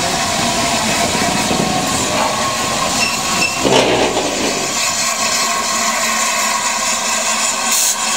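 Peppercorn A1 Pacific steam locomotive 60163 Tornado moving slowly at close range: a steady loud hiss and mechanical running noise, with a brief louder knock about four seconds in and a short sharp hiss near the end.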